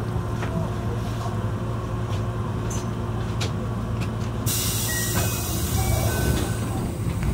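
Keihan Ishiyama Sakamoto Line tram heard from its driver's cab: a steady low hum with a few light clicks, and about halfway through a sudden steady hiss begins and carries on.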